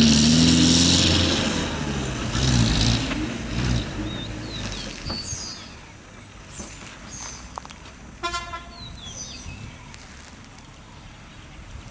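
Bus engine running under load and fading away over the first few seconds, then one short horn toot about eight seconds in. Faint bird chirps in between.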